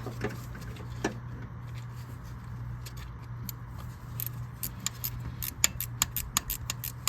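Sharp, irregular metallic clicks and clinks of hand tools and parts being worked in an engine bay, becoming frequent about four seconds in, over a steady low hum.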